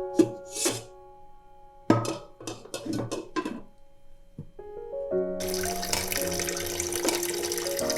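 A few short clinks and knocks, then a water tap turned on about five seconds in, running steadily. Soft background music plays throughout.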